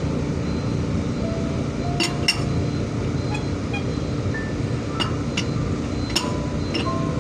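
Hand tools striking the steel rim of a truck wheel during manual tyre removal. About six sharp ringing metal clinks, mostly in pairs, sound over a steady low background rumble.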